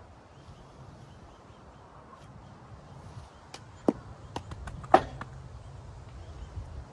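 A quick run of sharp clicks and knocks, about seven within two seconds, the loudest one about five seconds in.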